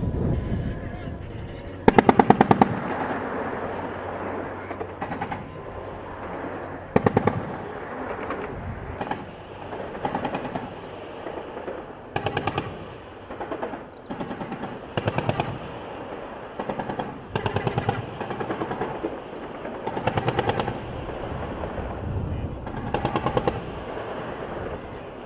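Machine guns firing in short bursts, about a dozen in all, each a rapid rattle lasting roughly half a second to a second. The first burst, about two seconds in, is the loudest. The guns are probably mounted on the tanks and amphibious assault vehicles.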